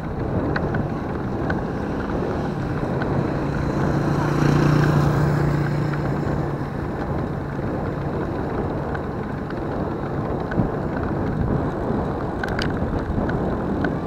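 Wind rushing over the microphone and a steady engine drone from a vehicle riding along a road. A motorcycle engine hum grows louder about four to six seconds in as another motorcycle is drawn alongside, then fades.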